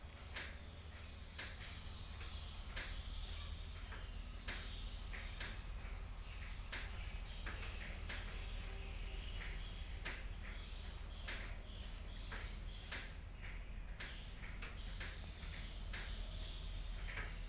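A steady high insect buzz, with sharp clicks at irregular intervals, about one a second, and a low steady rumble underneath.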